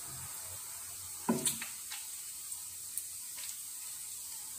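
Diced meat sizzling in hot oil in a frying pan, a steady hiss, while a wooden spatula stirs it and knocks against the pan a couple of times a little after a second in, with lighter taps later.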